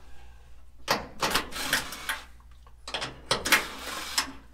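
Makita 18-volt cordless impact driver run in several short bursts, driving a fastener into a throttle pedal bracket.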